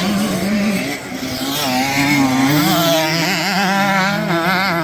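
Motocross bike engines revving hard on the throttle, their pitch shifting constantly; in the last couple of seconds the note wavers rapidly up and down.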